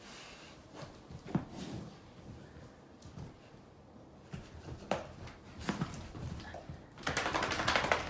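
A dog rubbing and rolling on a bare mattress: scattered soft thumps and rustling of fur on fabric, with one sharper thump early on. Near the end comes the loudest part, about a second of fast rattling.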